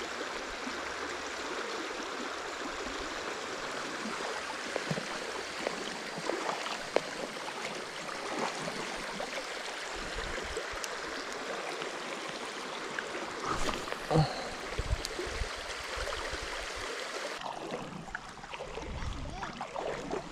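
Shallow creek water flowing steadily, with a few faint knocks about a third and two-thirds of the way through. The rush of water drops off a couple of seconds before the end.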